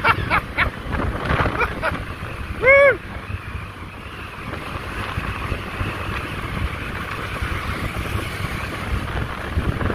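Wind rushing over the microphone and road noise from a Honda Click 150 scooter riding along a road. In the first three seconds there are a few brief voice-like sounds, the loudest a short call that rises and falls in pitch about three seconds in.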